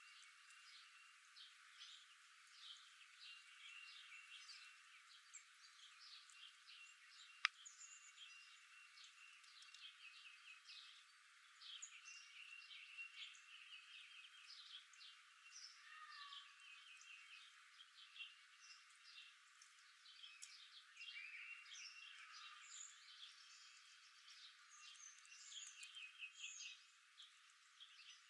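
Several small birds chirping and trilling, many short calls and quick runs of repeated notes overlapping. There is a single sharp click about seven seconds in.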